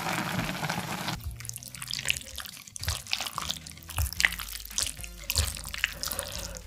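Chopsticks stirring and lifting saucy instant ramen noodles: a steady wet hiss for about the first second while the noodles are stirred in the pot, then many short wet squelches and light clicks as the noodles are worked in the bowl.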